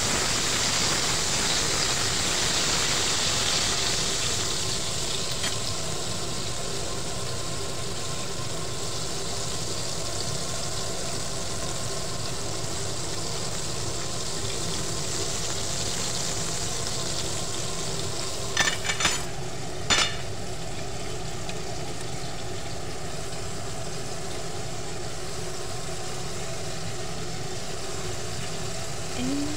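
Chicken pieces deep-frying in hot oil in a pot, a steady sizzle that is brighter for the first few seconds while they are stirred. A few sharp clicks come about two-thirds of the way through.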